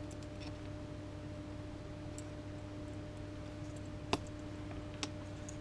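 Steady hum of a bench fume extractor fan, with a few faint small clicks of a circuit board and its components being handled; one sharper click comes about four seconds in.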